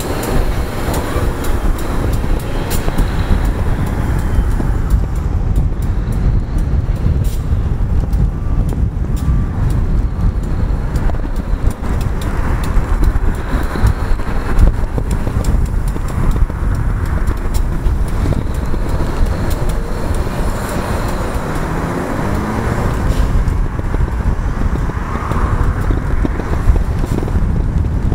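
Two diesel switcher locomotives running at low speed as they tow a string of subway cars along yard track, under a steady low rush of wind on the microphone.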